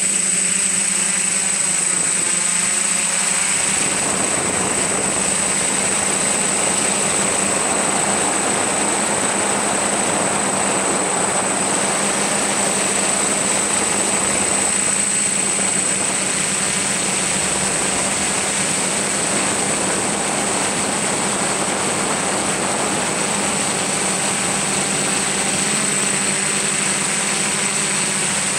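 Electric motors and propellers of a camera drone, heard from on board: a steady high whine and a low hum over a rushing noise that grows fuller about four seconds in.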